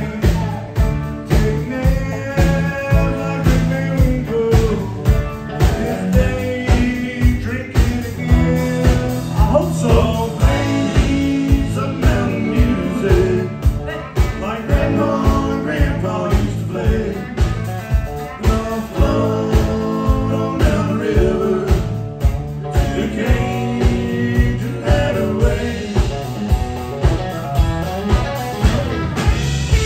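Live country-rock band playing: acoustic and electric guitars, bass and drums keeping a steady beat, with a man singing over them.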